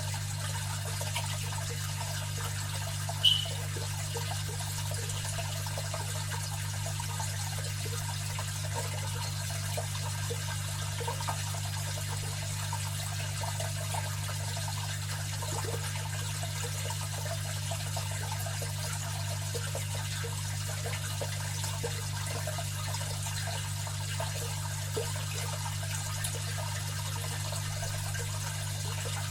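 Aquarium filter running: a steady low hum under a continuous trickle of falling water, with one brief sharp plink about three seconds in.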